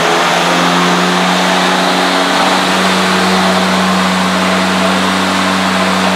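EGO 56-volt self-propelled electric lawn mower's blade motor running at full speed, a steady whirring hum with the rush of the spinning blade. It echoes off the garage walls, which makes it sound louder than it is.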